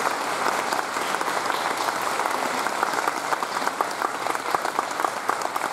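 Audience applauding: a dense patter of many hands clapping that thins a little near the end.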